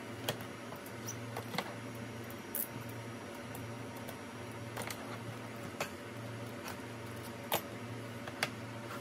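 Scattered light clicks and taps as a keyboard box in a clear plastic sleeve is handled and set down on a desk. Seven or so sharp ticks, the loudest about three-quarters through, over a steady low background hum.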